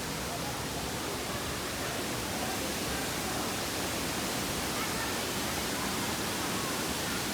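Waterfall, a steady, even rush of falling water with no breaks, with faint voices under it.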